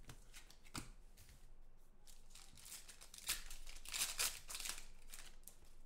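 Foil wrapper of a 2014 Panini Contenders football card pack being torn open and crinkled by hand: a run of rustling, scrunching sounds, loudest about three to four seconds in.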